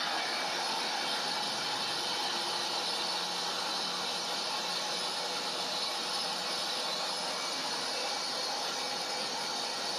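Multifunction chopper-grinder machine running steadily, a continuous even rushing noise with no breaks or changes in level.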